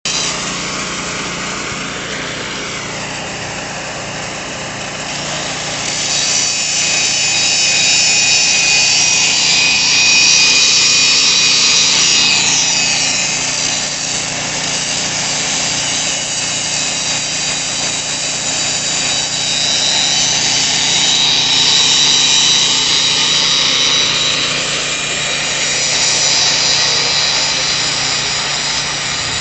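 Power grinder grinding concrete: a continuous harsh high hiss over a steady motor hum, growing louder for stretches and easing again.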